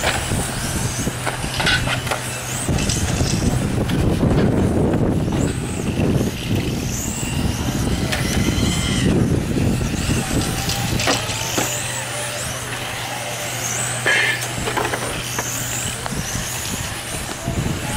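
Electric RC touring cars racing on asphalt, their motors whining up and down in pitch over and over as they accelerate and brake through the corners, with tyre noise on the asphalt. A steady low hum runs underneath.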